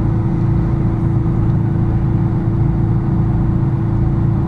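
A steady mechanical drone with a constant low hum, unchanging throughout.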